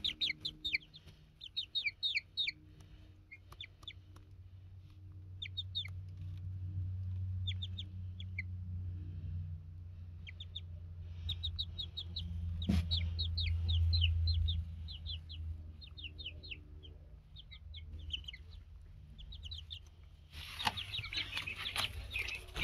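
Baby chicks peeping: runs of short, high, falling peeps, over a low rumble that swells in the middle, with one sharp click about thirteen seconds in.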